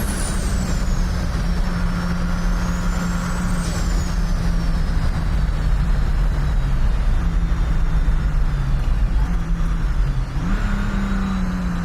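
Mercedes 300TD's OM606 straight-six turbo diesel running with a heavy low rumble and a high turbo whistle that slowly rises and falls, its turbo boosted to 43 psi. Near the end the engine note dips and then climbs again.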